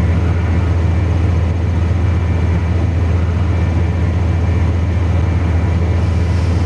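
Car engine idling, a steady low hum heard from inside the cabin.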